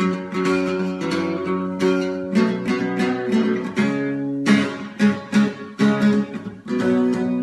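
Acoustic guitar strummed in a steady rhythm, changing chords every second or so: the instrumental intro of a song, before the vocals come in.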